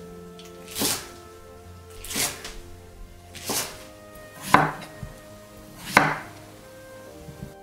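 Kitchen knife chopping vegetables, chives and then a peeled potato, on a wooden cutting board: five single, unhurried cuts, each a sharp knock of the blade on the board, about one every second and a half.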